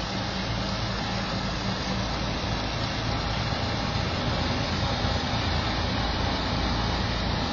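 Bizon-class pusher tug's diesel engine running steadily as it passes close, a low drone under an even rush of water churned by the propeller.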